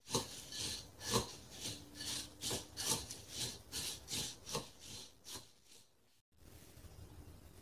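Wooden chopsticks stirring oiled, crumbled dried seaweed in a glass bowl: a rhythmic rustling scrape of about three strokes a second, with sharper clicks of the chopsticks against the glass now and then. The stirring stops after about five and a half seconds, leaving a faint steady hiss.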